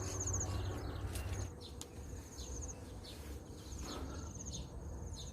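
Insects, cricket-like, chirping in short high-pitched trills that repeat about once a second. A low rumble sits under them for the first second and a half.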